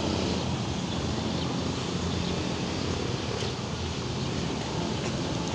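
Steady street noise of motorbike traffic on the road, with wind on the microphone.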